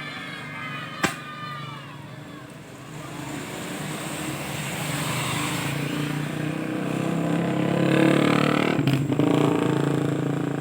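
Tour bus driving past, its engine noise building to a peak about eight seconds in and then easing a little. A sharp click about a second in.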